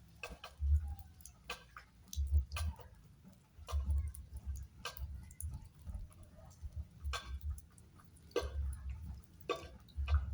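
Rain dripping: irregular sharp drips and ticks of water landing on hard surfaces, with repeated bursts of low rumble underneath.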